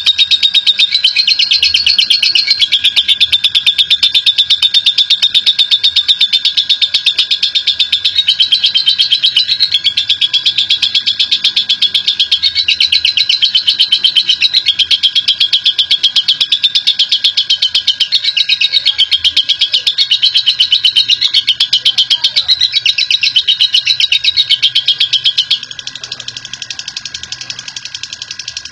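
Lovebird giving a long 'ngekek': a fast, unbroken, high-pitched chattering trill that wavers up and down in pitch, turning much quieter near the end.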